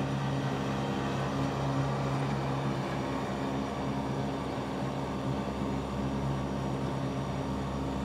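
John Deere 2038R compact tractor's three-cylinder diesel running steadily while mowing with its 72-inch mid-mount deck engaged.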